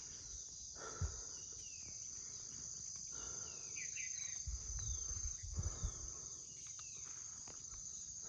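Steady high-pitched insect chorus, crickets or cicadas, with short falling bird chirps over it and a few low thumps about halfway through.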